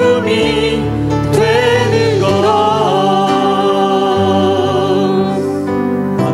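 Church praise team of men's and women's voices on microphones, with instrumental accompaniment, singing the closing phrase of a worship song. From about three seconds in they hold the final note, which fades out near the end.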